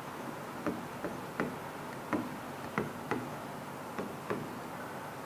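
Stylus tip tapping against the glass of an interactive touchscreen display as letters are written by hand, a run of irregular taps about two a second that stops after about four and a half seconds.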